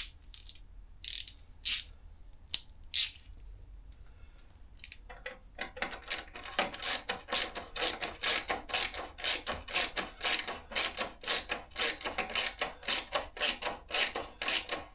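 Hand ratchet clicking as Torx panel bolts are tightened: a few single clicks, then about five seconds in a fast, even run of clicks, about four to five a second.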